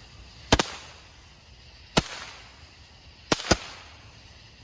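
Consumer fireworks going off in a series of sharp bangs at uneven intervals: a quick double bang about half a second in, a single bang at about two seconds, and another double bang about three and a half seconds in.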